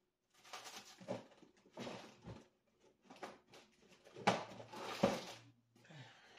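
A box of craft flower stamens being handled and opened on a desk: irregular rustling and clattering, with two sharper knocks about four and five seconds in.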